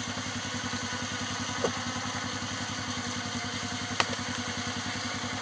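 Polaris Sportsman ATV engine running steadily at low revs, with a couple of faint clicks.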